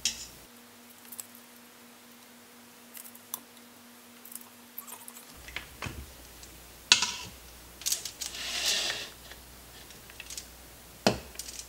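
Scattered clicks and light knocks of kitchen handling as cooked pork ribs are lifted out of an Instant Pot's stainless inner pot onto a foil-lined baking sheet. Two sharper knocks come about seven seconds in and near the end, with a short scraping rustle between them.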